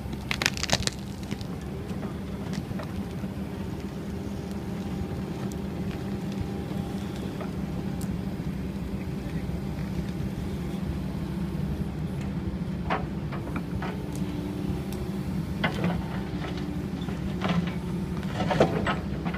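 Kobelco ED160 Blade Runner excavator running steadily as it works, its dozer blade pushing soil and roots. A few sharp knocks and cracks stand out about half a second in and several more in the last six seconds.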